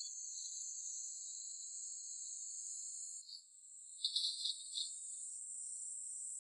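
A steady, high-pitched chorus of forest insects buzzing. It shifts slightly higher about halfway through, and a few short louder pulses come about four seconds in.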